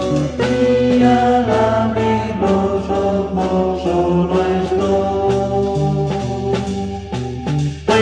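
Instrumental break in a late-1950s to 1960s Spanish rock-and-roll recording: a melody line moves over bass and drums with no lead vocal. Near the end it dips briefly before the full band comes back louder.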